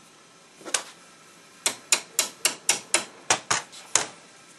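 A run of sharp knocks: a single knock about three-quarters of a second in, then nine quick ones at about four a second.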